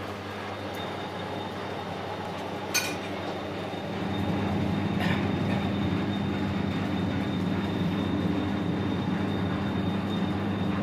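High mast winch gearbox and its drive running under a load test with hanging concrete weights: a steady machine hum that grows louder about four seconds in, with a single sharp click near three seconds.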